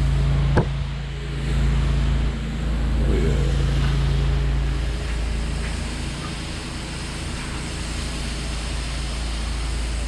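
Pressure washer's Honda GX690 V-twin engine running steadily, with the hiss of high-pressure water spraying. A sharp click about half a second in.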